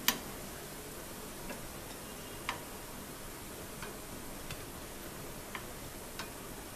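Shrimp fritters frying in hot oil in a pan: a faint steady sizzle with scattered sharp pops and clicks, the loudest right at the start.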